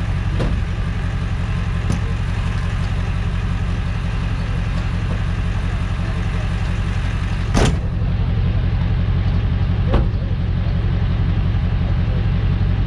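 Tow truck's engine idling steadily, with a few short knocks over it, the sharpest about seven and a half seconds in.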